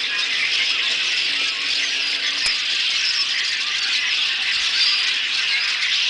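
A large flock of red-winged blackbirds calling all at once: a dense, steady chatter of many overlapping calls.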